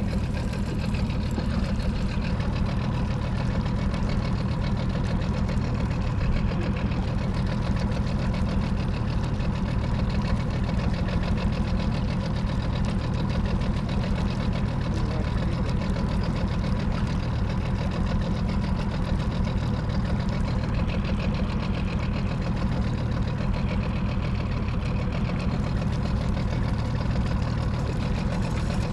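Boat motor running steadily at low speed, a constant low engine drone with a fine, even pulse and no change in speed.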